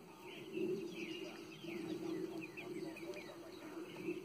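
Young chickens, about two months old, peeping and chirping as a flock: many short falling chirps overlapping all the way through, over a steady low hum.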